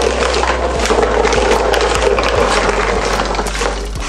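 Marbles rolling along cardboard tracks and being carried up a hand-cranked cardboard escalator: a steady rolling rattle full of small clicks.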